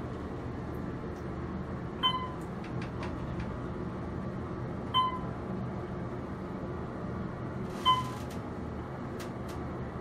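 Otis Series 1 elevator car riding up with a steady low hum, its chime giving three short beeps about three seconds apart, one for each floor passed as the position indicator counts up.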